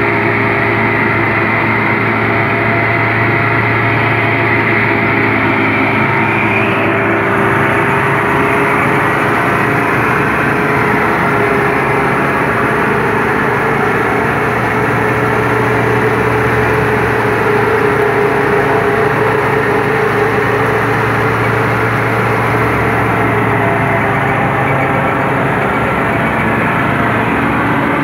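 Tractor-powered straw chopper running: the tractor engine and the PTO-driven chopper's rotor and blower make a loud, steady mechanical drone. A high whine rises slightly and fades about seven seconds in.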